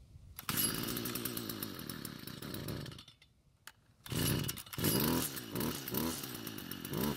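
Stihl FS45 string trimmer's small two-stroke engine starting and running for about two and a half seconds, dying, then catching again about four seconds in and running unevenly, its pitch surging up and down. It won't stay running: the trimmer needs a tune-up.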